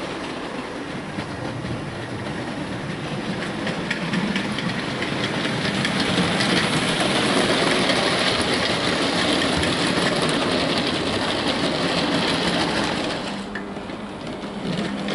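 OO gauge model goods train running along the layout track: a dense rattle of many fine clicks that grows louder as the train comes closest, then drops away suddenly near the end.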